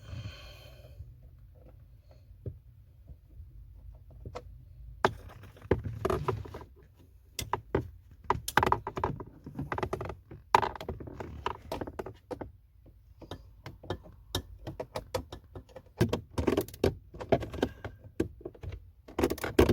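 Clicks, knocks and rattles of a replacement blend door actuator and its fasteners being worked into place by hand under a car's dashboard. It starts after a quiet few seconds and comes in irregular clusters.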